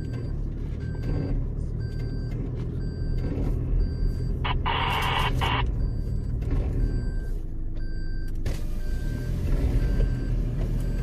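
Vehicle engine running with a reversing beeper chirping evenly about twice a second as it backs up. About halfway through there is a brief loud hiss-like burst of noise.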